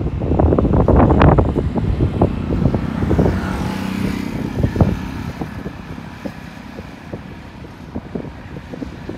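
Gusty wind buffeting the microphone in irregular low thumps, loudest in the first few seconds and easing off toward the end, with a faint steady low hum for a couple of seconds midway.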